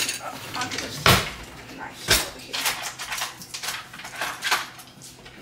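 Kitchen utensils clattering as someone takes knives out of a utensil drawer, with sharp knocks about one and two seconds in, and the drawer pushed shut.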